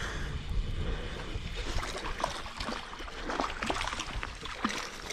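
Water sloshing and splashing around a small fishing boat, with many short clicks and a low rumble underneath.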